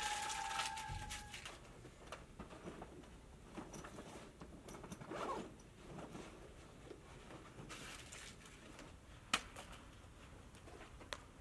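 Soft rustling and a zipper being pulled as a bag is packed up, with two sharp clicks near the end.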